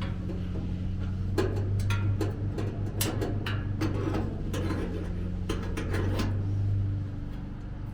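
Metal grill parts clanking as the burners are set back into the gas grill, a series of irregular knocks and clinks, with a steady low hum underneath.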